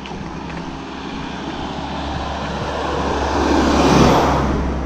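A van drives past close by on the road. Its engine and tyre noise builds steadily as it approaches, is loudest about four seconds in as it passes, then fades as it goes away.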